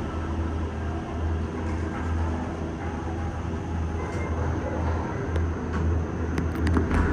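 Disney Skyliner gondola lift machinery running through the station: a steady low hum and rumble, with a few sharp clicks in the second half.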